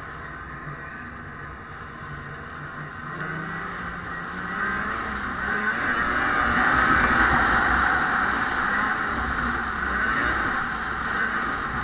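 Vintage two-stroke snowmobile engine heard from the rider's seat, running under throttle and picking up speed about three seconds in, loudest in the middle, then easing off a little.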